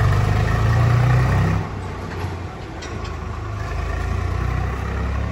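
A motor vehicle's engine running, loud for about the first second and a half, then dropping to a lower, steadier level that slowly builds again.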